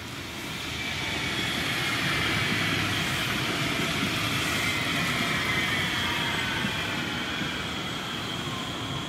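Cologne Stadtbahn light-rail trams, one a K5000, passing each other on the track. Wheels on rail give a rumble that swells over the first two seconds and holds. Above it, high whining tones slide slowly down in pitch.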